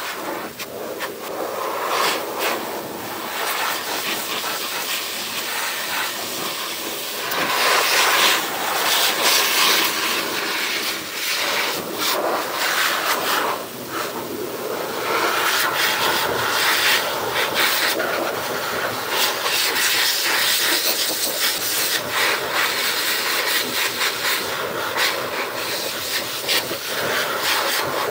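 Pet grooming blower blowing a steady rush of air through its hose to dry a cat's coat, rising and falling in loudness.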